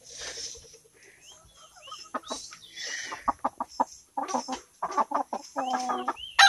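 Rhode Island Red hens clucking: a run of short clucks, sparse at first and coming thick and fast in the second half.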